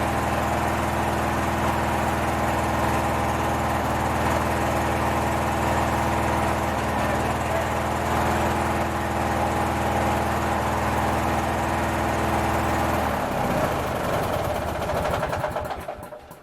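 Craftsman 19.5 twin riding mower's twin-cylinder engine running steadily, then shut off about 13 seconds in and winding down to a stop.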